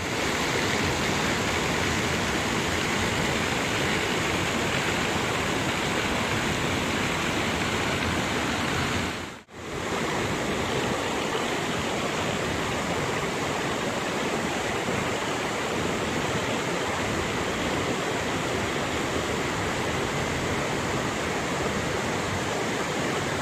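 Steady rush of water pouring from a row of inlet spouts into concrete trout-farm raceways. The sound breaks off for a moment about nine seconds in, then carries on as before.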